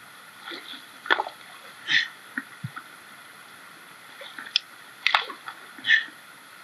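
Riverbed stones knocking together and water sloshing as rocks are pulled out of the streambed by hand: about seven sharp knocks and splashes at irregular intervals over the steady rush of the river.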